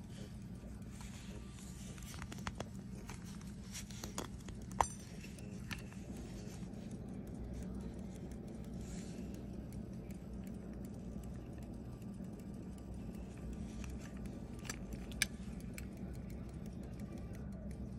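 Gold pocket watch case being handled and opened, with soft metallic taps and a sharp snap about five seconds in as the back cover opens. A second click about fifteen seconds in comes as the inner dust cover opens. A steady low hum runs underneath.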